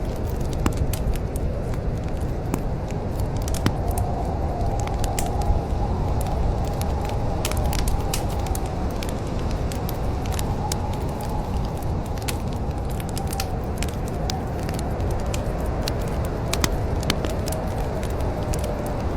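Wood fire burning in a fireplace, crackling with frequent irregular sharp pops and snaps over a steady low rumble of the flames.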